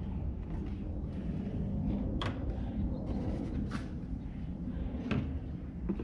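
Four short knocks and clunks about a second or so apart, over a steady low rumble.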